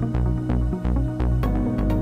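Electronic background music with a steady driving beat and a heavy bass line, with a crash and a change in the bass about one and a half seconds in.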